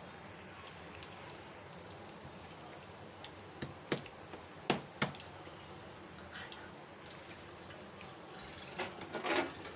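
Hot oil sizzling steadily in a kadhai as battered chicken-and-vegetable starters deep-fry. Sharp pops of spattering oil come a few times around the middle, and a louder run of crackling comes near the end.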